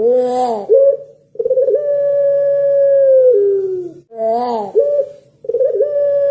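Puter pelung, a long-voiced Barbary dove, cooing. A short rising-and-falling note is followed by a long, steady held coo that drops a step in pitch near its end. The pattern repeats, with a new long coo starting near the end.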